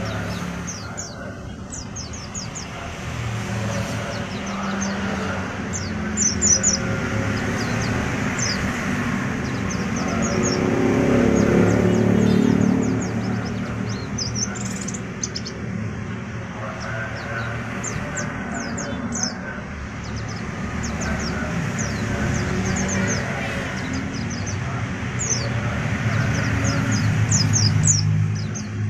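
White-eyes (pleci) chirping, with many short, high chirps scattered throughout, over a low rumbling background that swells about ten to thirteen seconds in.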